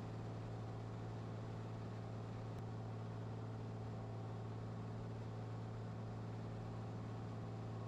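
Cessna 182's engine and propeller in flight, a steady low drone that stays even throughout.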